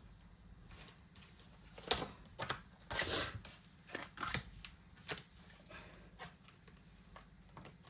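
Printed paper savings-challenge sheets being handled, giving several short rustles and crinkles a second or so apart.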